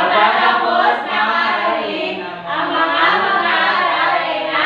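A group of voices singing a song together in unison, continuous with brief dips between phrases.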